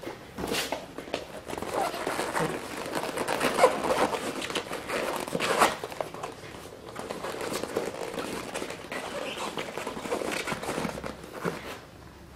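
Rustling and crinkling handling noises with scattered clicks and knocks, starting about half a second in, loudest between about 3 and 6 seconds, and fading out near the end.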